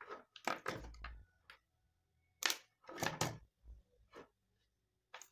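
Hands working a PVC-insulated power-cord wire, stripping it on a tabletop: a few short bursts of scraping, rubbing and knocking, separated by quiet gaps.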